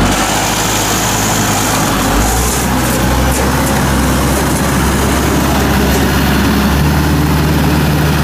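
Small farm tractor's engine running hard and steady as it drags heavy, mud-laden bridge mats out of the mire; the load is so heavy that the tractor barely moves. The engine's hum changes pitch near the end.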